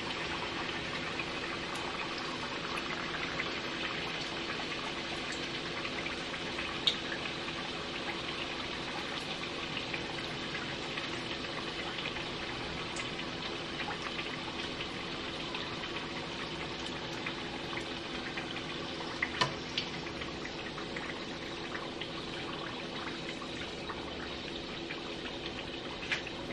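Apple-filled egg rolls deep-frying in hot vegetable oil in a pot: the oil sizzles and bubbles steadily around them, with a few sharp pops, the loudest about 7 seconds in and around 19 to 20 seconds in.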